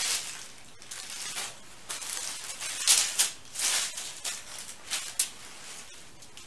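Paper packing and a heavily embellished net gown rustling and crinkling as the dress is unpacked and handled, in a string of short swishes that die down near the end.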